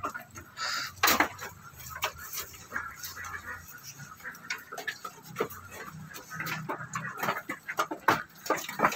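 Goats moving about on a wooden slatted pen floor: irregular light knocks and rustling.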